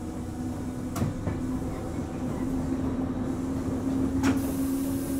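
Gakunan Railway 7000-series electric railcar (ex-Keio 3000 series) running, heard from inside the car: steady running noise with a motor hum that edges slightly higher in pitch. Two sharp clicks come about three seconds apart.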